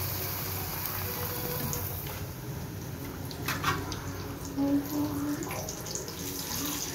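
Hot oil sizzling steadily as a batter-coated egg deep-fries for egg bajji, with a few sharp clicks about halfway through.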